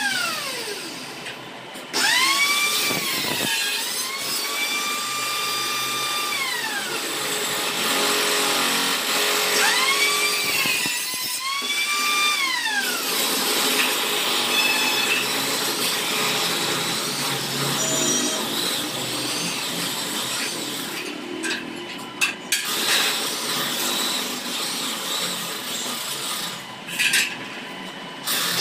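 Electric angle grinder switched on and off: its motor whines up to a steady high pitch and winds down again, twice in the first half. Then a long stretch of harsh, steady noise with a few sharp clicks near the end.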